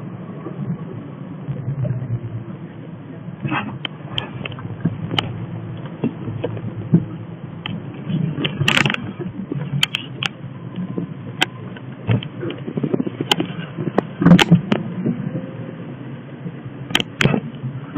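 Car driving slowly, heard from inside: a steady low engine and road hum with irregular clicks and knocks from the cabin rattling over the road surface.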